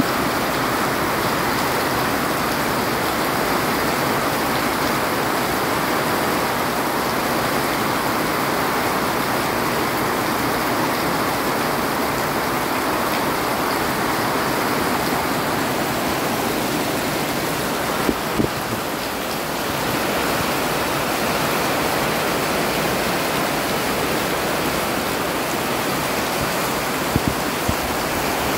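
Rain falling steadily, a continuous even hiss. A few sharper taps stand out about two-thirds of the way in and again near the end.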